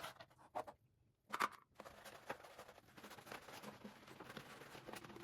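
Vacuum cleaner parts being handled for cleaning: a few sharp clicks and a louder knock, then from about two seconds in a continuous rustling and scratching. The vacuum's motor is not running.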